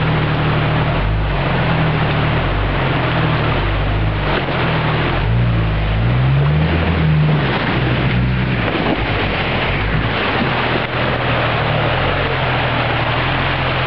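4x4 Jeep's engine running under load as it drives through deep creek water, with water rushing and splashing against the vehicle. The engine pitch rises and falls about halfway through.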